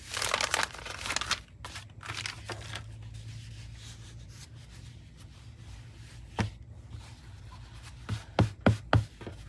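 A jelly bar of precut quilting cotton being unrolled and handled: a burst of rustling and crinkling at the start, soft rustles, then several quick pats near the end as hands press the fabric stack flat on a wooden table.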